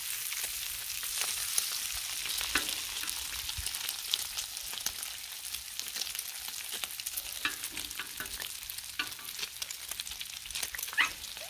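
Bacon frying on a hot Blackstone flat-top griddle: a steady sizzling hiss with frequent crackles and pops of spitting fat.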